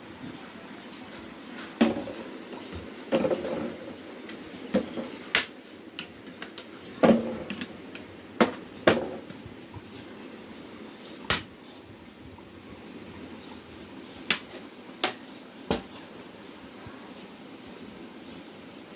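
A long wooden stick knocking against a hard floor and wooden furniture, about a dozen sharp, irregular taps.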